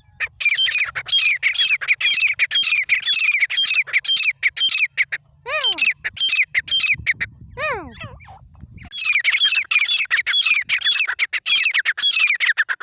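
Grey francolin (teetar) calling: long runs of rapid, sharp, repeated squawking notes, broken in the middle by two single falling notes.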